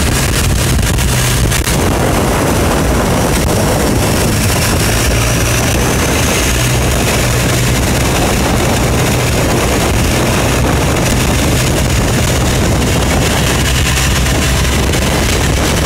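Long-tail boat's engine running steadily at cruising speed, with a low drone and rushing noise of the hull through water and air, and wind buffeting the microphone.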